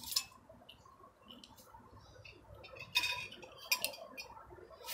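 Cutlery and dishes clinking during a meal: forks and spoons tapping on plates and a metal serving platter. There are a few sharp clinks, one just after the start and a cluster about three to four seconds in.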